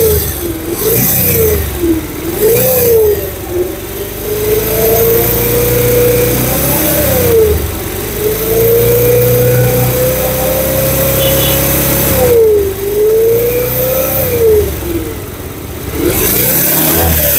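Bajaj Pulsar UG5's single-cylinder engine revved with the throttle, its pitch rising and falling in several short blips and two longer held revs in the middle. The engine note is the unusual sound being shown as the bike's problem.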